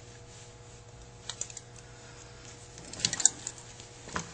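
Light clicks and taps of small metal parts being handled against a Carter AFB carburetor's aluminium body: a couple of clicks about a second in, then a quick cluster of sharper clicks near the end.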